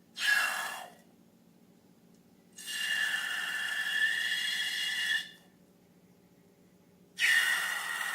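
Air hissing with a whistling tone in three bursts: a short one at the start, a longer one of about two and a half seconds in the middle, and another short one near the end.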